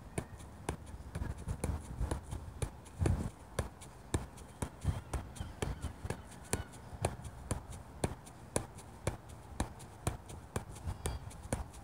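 A soccer ball being juggled: a steady run of light taps as the ball is struck off foot or thigh, about two a second.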